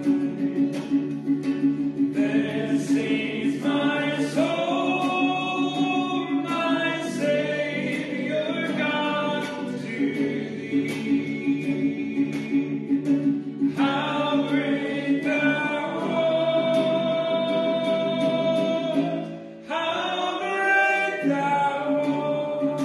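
Voices singing a hymn to instrumental accompaniment, with held notes over a steady low backing and a brief pause between phrases near the end.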